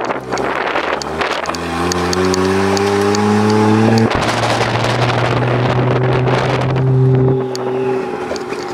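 Toyota 1JZ-GTE twin-turbo straight-six engine, heard from inside the car's cabin, accelerating. The revs climb, drop sharply at a gear change about four seconds in, pull up again, and ease off near the end.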